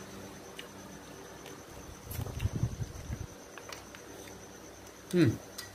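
Steady high-pitched insect chirring, with faint clicks of chopsticks against dishes. A low murmur of voices comes about two seconds in, and a short falling vocal sound about five seconds in.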